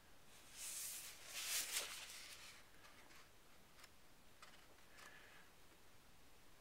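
Faint rustle of paper pages being handled and turned in a drawing book, swelling twice in the first two seconds, followed by a few soft ticks.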